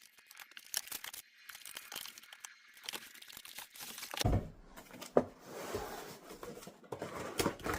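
A cardboard shipping box being opened by hand: tape tearing and packaging crinkling and rustling, with scattered clicks and a dull thump about four seconds in.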